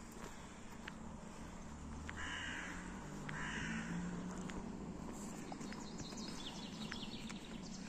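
Two harsh, caw-like bird calls, about two and three seconds in, over faint steps of someone walking.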